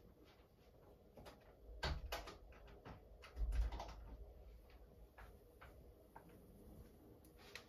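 Beko WTK74011W front-loading washing machine with its drum turning slowly, giving scattered light clicks and knocks and two deeper thumps about two and three and a half seconds in. Near the end a faint hum starts to rise.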